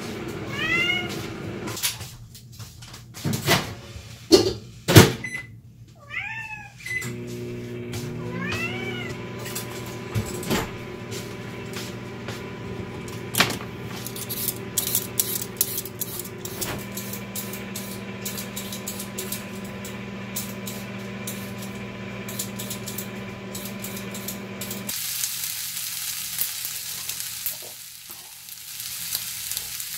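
Domestic tabby cat meowing three times within the first nine seconds, each call a short arched cry, with several sharp knocks in between.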